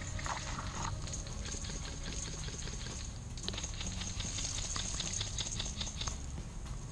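Reed and grass leaves rustling and crackling against a ghillie suit and rifle as a player pushes slowly through tall riverbank vegetation, with the crackling densest from about halfway on. A low steady rumble runs underneath.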